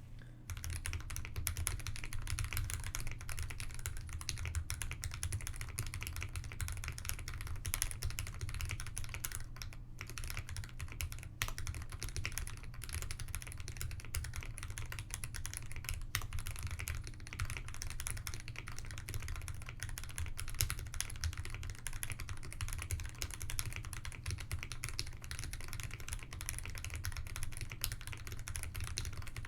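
Continuous fast typing on an Ikki68 mechanical keyboard with factory-lubed Gateron KS-3 Milky Yellow Pro linear switches (50 g) on an aluminium plate, under GMK keycaps. The keystrokes come thick and steady, with a brief pause about ten seconds in.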